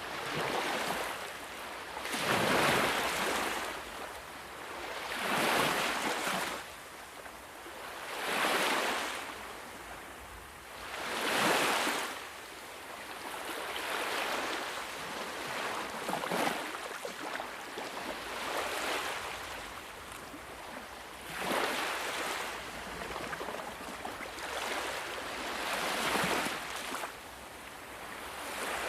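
Sea waves breaking on a shore, a hiss of surf that swells and falls back about every three seconds.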